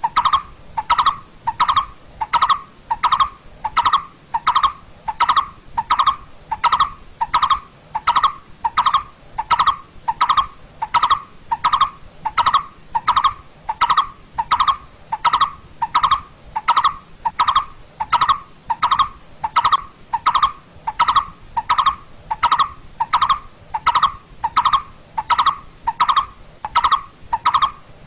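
Coppersmith barbet calling: a long, steady series of single notes, evenly spaced at about three notes every two seconds.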